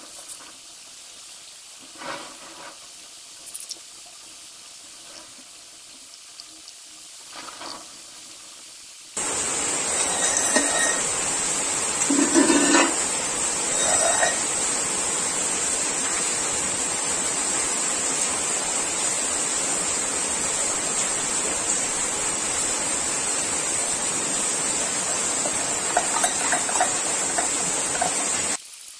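A few short hand-rubbing strokes on an aluminium engine cover. About nine seconds in, a loud, steady hiss with a thin high whine starts suddenly and runs on until it cuts off abruptly just before the end.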